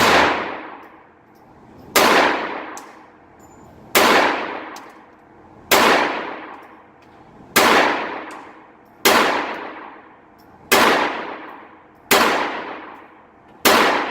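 Phoenix Arms .22 LR pistol being fired shot by shot, nine shots spaced about one and a half to two seconds apart, each with a long echoing ring-out.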